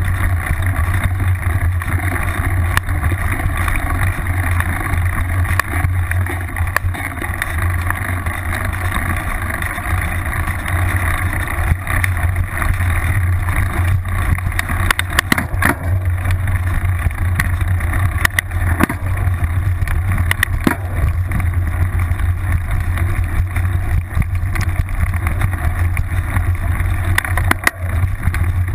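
Mountain bike riding over a dirt trail, heard through a camera clamped to the seatpost: a steady wind and rolling rumble with scattered sharp knocks and rattles from bumps in the trail.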